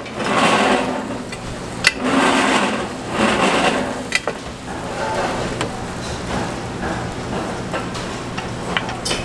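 Batter poured into a hot cast-iron wheel cake mould, sizzling in a noise that swells and fades with each pour, with a few sharp metal clinks.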